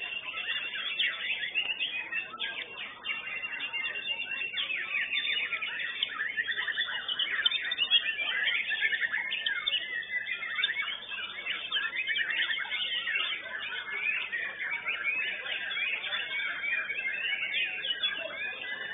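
White-rumped shamas singing competitively: a dense, unbroken run of quick whistles, trills and chirps, with several birds overlapping.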